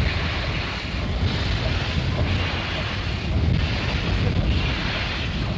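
Wind buffeting the microphone over a steady low rumble, with a hiss that swells and fades about once a second.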